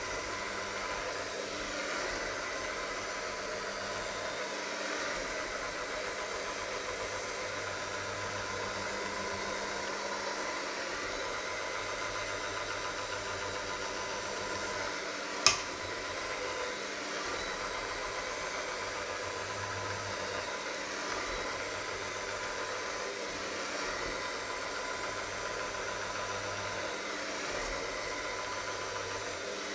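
Electric hand mixer running steadily, its beaters churning a thick mixture in a stainless steel bowl, with a single sharp click about halfway through.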